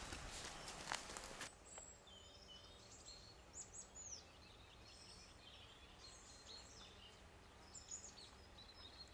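A cow's hooves clopping on the lane for about a second and a half, then faint birdsong: small birds giving short high chirps and twitters.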